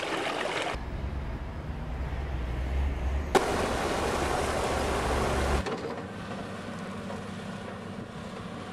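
Rushing floodwater with a deep rumble, water pouring through a drain and out of concrete culvert pipes, changing abruptly at the shot cuts. After about five and a half seconds it gives way to a fainter steady hum of an excavator's engine.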